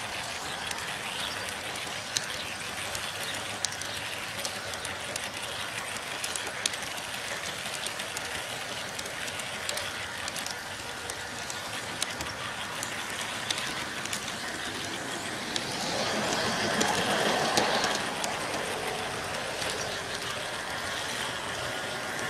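G scale model train running on its track: a steady rolling noise with scattered light clicks, swelling louder for a couple of seconds toward the end.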